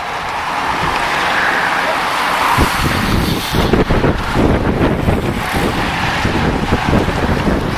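A pack of racing bicycles passing close by: a steady hiss of tyres on the road that swells over the first second or two as the riders draw level, with wind gusting on the microphone.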